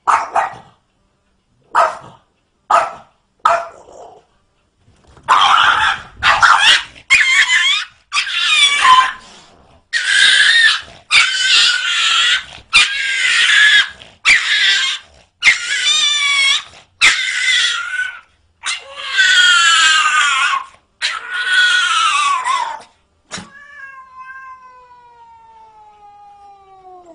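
Cat yowling, over and over: a few short calls, then a long string of loud, drawn-out, wavering calls of about a second each, and a long call falling steadily in pitch near the end.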